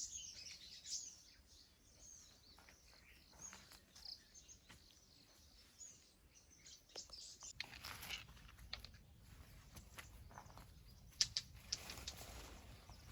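Faint outdoor ambience with small birds chirping, strongest in the first second or so, and scattered light clicks and taps, a few sharper ones near the end.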